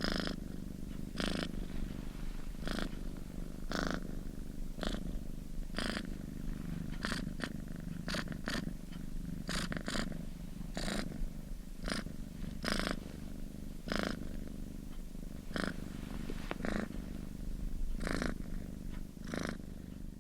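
Domestic cat purring steadily close to the microphone: a continuous low rumble with a breathy rasp recurring about once a second as the cat breathes.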